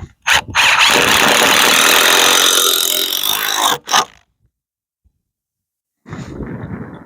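Cordless drill driving a screw, running steadily for about three and a half seconds with a high squeal; a shorter, quieter burst follows near the end.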